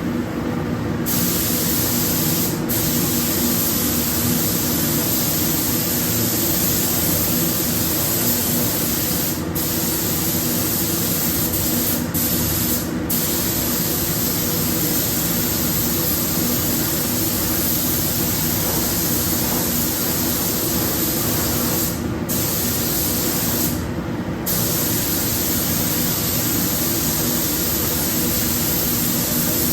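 Compressed-air paint spray gun hissing steadily while a car body is sprayed. The hiss cuts out for a moment several times. A steady low hum runs underneath.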